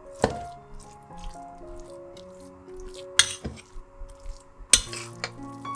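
Metal spatula knocking and scraping against a stainless steel wok while stir-frying a thick chili paste: a few sharp clinks, about a second and a half apart, over soft background music.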